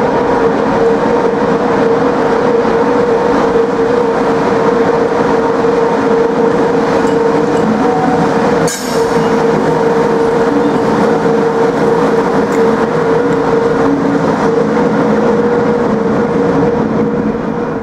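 British Rail Class 92 electric locomotive passing close at low speed: a steady electric hum with a few higher steady tones over the rumble of its wheels on the rails, and one sharp click about halfway through.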